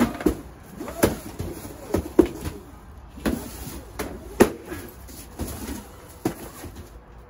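A stick striking a hanging cardboard-and-paper llama piñata: about ten irregular knocks, a few of them louder than the rest.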